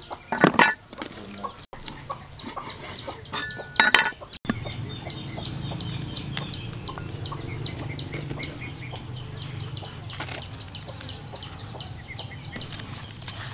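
A few heavy strikes of a meat cleaver on a round wooden chopping board in the first four seconds or so. Chickens clucking throughout, with a rapid run of short high chirps.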